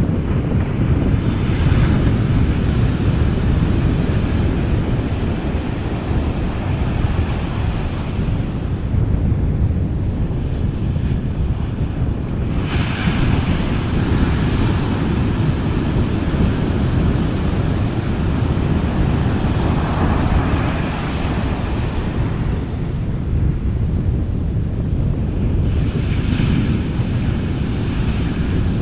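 Gentle sea waves washing onto a beach, the surf swelling and fading every few seconds, strongest about 13 seconds in. Under it runs a steady low rumble of wind on the microphone.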